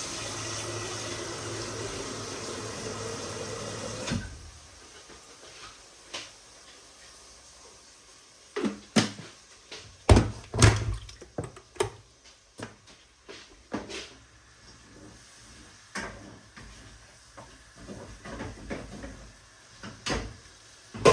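Kitchen tap running steadily for about four seconds, then shut off, followed by scattered knocks and clatter of pots and utensils.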